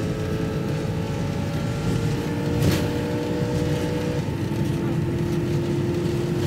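Vehicle engine and road noise from inside a moving car, a steady low rumble with a hum whose pitch steps down about four seconds in. A short knock just under three seconds in.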